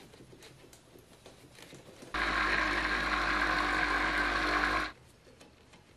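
Electric orbital polisher with a wool buffing pad running on freshly wet-sanded yellow paint, buffing polishing compound. It starts about two seconds in, runs steadily for about three seconds and cuts off sharply.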